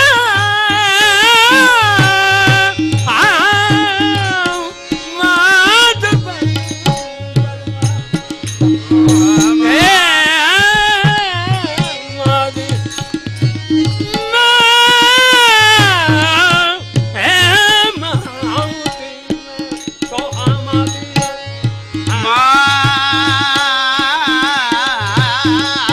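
A man sings a Marathi devotional song in long, ornamented, wavering phrases, with pauses between them. A harmonium and a two-headed barrel drum accompany him, and the drum keeps a steady beat under the voice and through the pauses.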